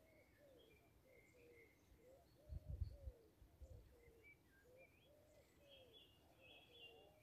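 Faint common cuckoo calling over and over, with small birds chirping higher up. A brief low thud comes about two and a half seconds in.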